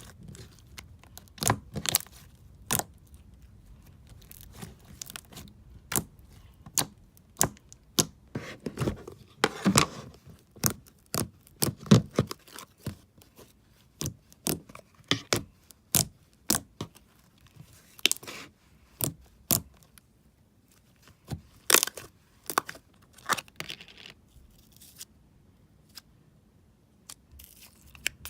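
Slime being squished and poked by hand, giving irregular sticky clicks and pops, sometimes several in quick succession.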